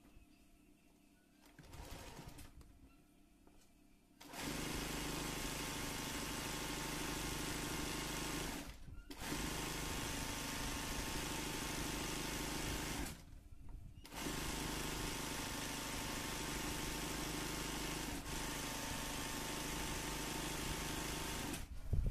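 Singer 20U industrial zigzag sewing machine stitching a satin-stitch outline, starting about four seconds in and running steadily in three spells, with two short pauses between them.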